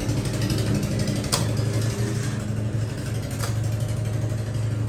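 A steady low machine hum, with two sharp clicks about two seconds apart, the first just over a second in.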